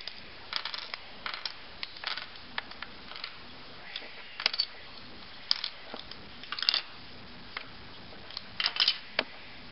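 Lego bricks being pulled apart and handled: scattered small plastic clicks and clacks, some coming in quick clusters.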